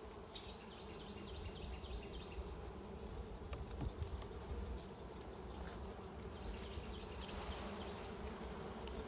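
Honey bees buzzing in an opened beehive: a steady hum from the colony, with faint light ticks scattered through it.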